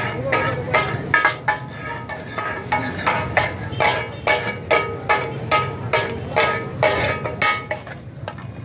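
Two flat metal spatulas striking over and over on a large flat griddle (tawa), chopping mutton katakat: a ringing metallic clatter of about three strikes a second. It stops shortly before the end.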